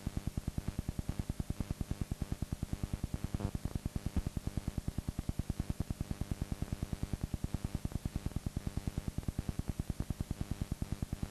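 Steady electrical buzz with a low hum, pulsing evenly about seven or eight times a second: interference noise on the sound track of a blank, picture-less stretch of videotape.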